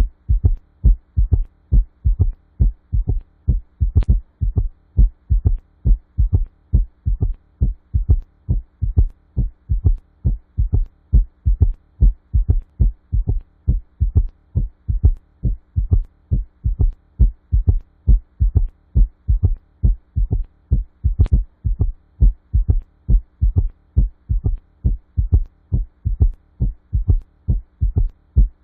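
Heart sounds with an S3 gallop: a third low heart sound follows the second, giving a repeating galloping rhythm of short, low thuds. This is the extra heart sound typical of heart failure. A faint hum runs underneath, and two sharp clicks come through.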